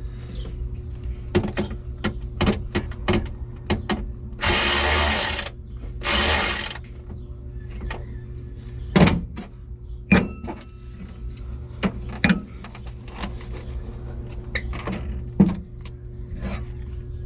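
A handheld power tool, such as a drill or driver, runs in two bursts of about a second each, the first about four and a half seconds in. Many sharp clicks and knocks of hand work on parts run throughout, some of them loud, around nine, ten, twelve and fifteen seconds in.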